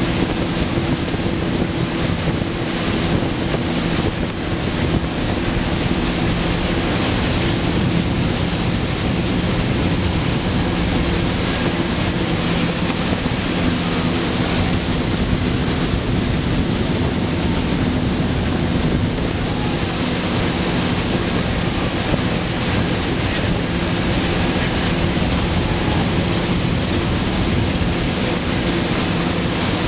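Wakeboard towboat under way: its engine drones steadily under the rush of the churning wake, with wind buffeting the microphone.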